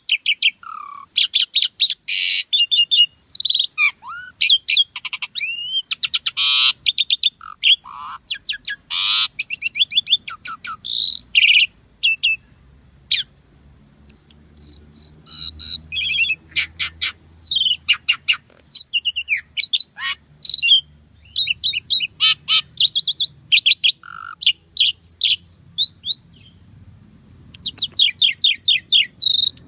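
Asian pied starling (jalak suren) singing energetically: a fast, varied medley of whistles, trills and rattling chatter phrases with short pauses between bursts.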